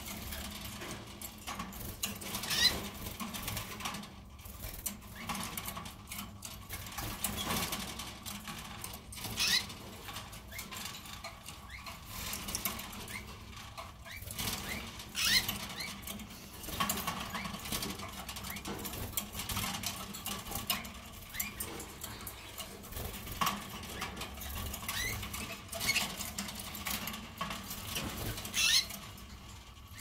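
Red factor canaries in their cages giving short chirps every few seconds, with light pattering and rustling of the birds moving about.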